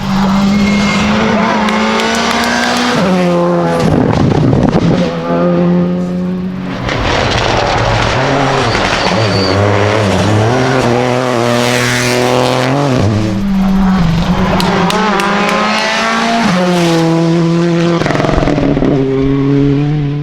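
Rally car engine worked hard through a stage, the revs climbing and then dropping back with each of several gear changes.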